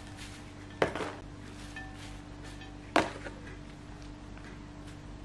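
Hand handling fresh arugula leaves on a ceramic plate, with faint leafy rustling, two sharp knocks about a second in and about three seconds in, and a steady hum underneath.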